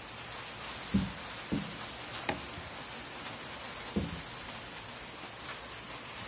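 Handling noise from hand embroidery on a hoop: four soft knocks spread over the first four seconds, over a steady hiss.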